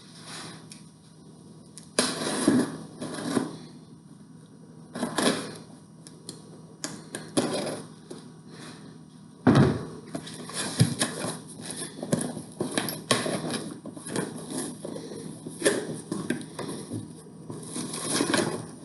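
Plastic packaging rustling and small parts clattering as an accessory bag is opened and searched through by hand, in irregular bursts, with a sharper knock about halfway through.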